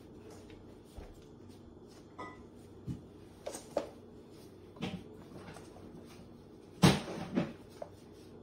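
Two cats wrestling on a hard laminate floor: scattered short thumps and scuffles of bodies and paws hitting the floor, the loudest thump late on.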